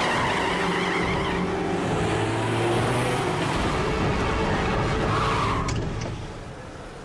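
Car sounds in a film soundtrack: engine and tyre noise under a dense din of effects, with a couple of sharp clicks near the end as it dies away.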